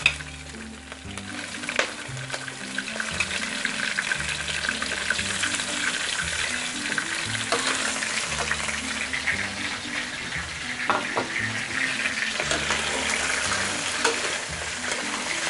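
Raw crab pieces and chopped garlic sizzling in hot oil in a blackened wok. The sizzle grows stronger after a couple of seconds. A metal spatula stirs them, knocking and scraping against the wok a few times.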